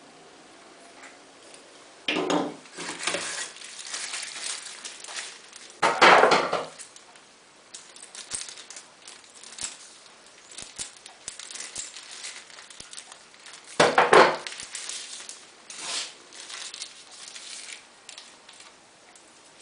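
Phone box and its contents being handled and unpacked: scraping, rustling and light clicks and clinks of cardboard and plastic, with louder bumps about two, six and fourteen seconds in.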